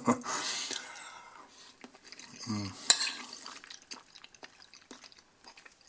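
A metal fork stirring and scooping creamy macaroni on a ceramic plate: soft wet squishes and small clicks, with one sharp clink of the fork on the plate about three seconds in. There is a short low hum of voice just before it.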